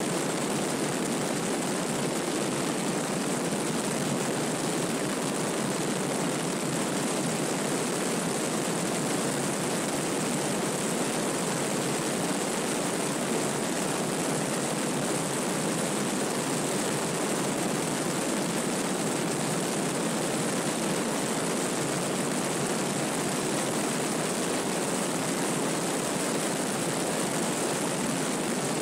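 Light single-engine propeller airplane in flight: a steady, even rush of airflow and engine and propeller noise, heard by a camera mounted on the outside of the aircraft.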